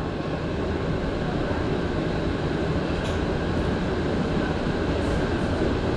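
Montreal Metro MR-73 rubber-tyred train pulling out of the station, heard from inside the car: a steady rumble of motors and tyres that builds slightly over the first second or two as it gathers speed.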